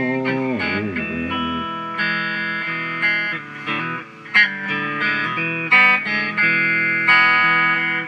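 Guitar music: bending, gliding notes in the first second or two, then a run of plucked notes over a steady low accompaniment.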